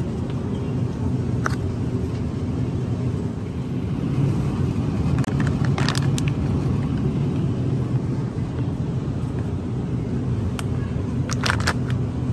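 Steady low rumble of supermarket background noise. A few brief crinkles of plastic food packs being handled come about one and a half seconds in, around six seconds and again near the end.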